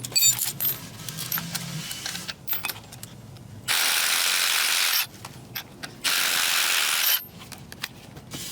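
A power impact wrench fires in two bursts, each a little over a second long, on the top mount nut of a compressed front strut; the nut comes off after the second burst. Scattered tool clicks come before the bursts.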